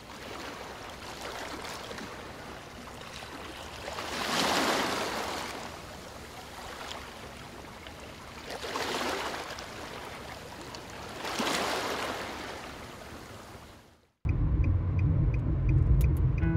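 Water running from a bamboo spout into a stone basin: a steady trickling splash that swells louder three times. It cuts off suddenly near the end, and background music with a strummed guitar begins.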